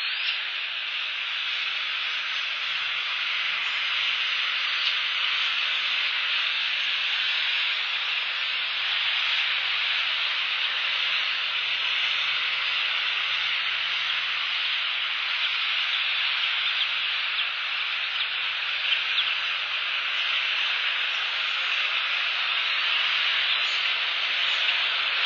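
Steady rain falling on the eagle nest, a continuous even hiss with faint scattered ticks of drops.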